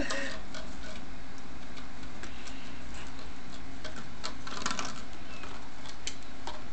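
A cat eating from a bowl: irregular small clicks and crunches, bunched together about four to five seconds in, over a steady low hum.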